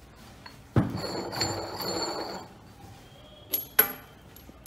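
Metal gas-line fittings and the steel oxygen bomb of a bomb calorimeter being handled: a scraping rub lasting about a second and a half, then two sharp metallic clinks in quick succession near the end.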